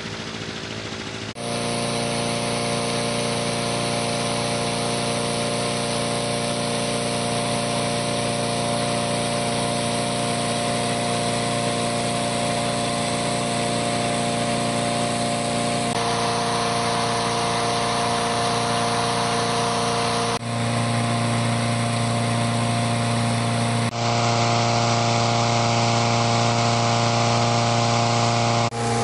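Petrol-engine inflator fan running steadily, blowing cold air into a hot-air balloon envelope during cold inflation. The steady engine note jumps abruptly in tone and level about four times.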